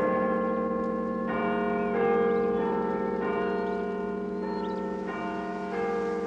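Slow background music of sustained, bell-like tones, the notes changing about once a second, with faint high chirps over it.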